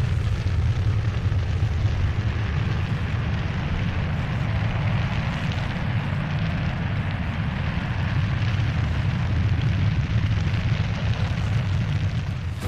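Space Shuttle launch: its solid rocket boosters and main engines firing during ascent, a steady deep rumble with a rough hiss above it.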